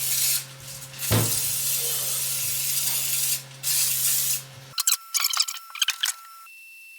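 Isopropanol (IPA) cleaner sprayed in three hissing bursts, the middle one about two seconds long, to degrease metal parts before powder coating. Near the end, a run of short clicks and rattles.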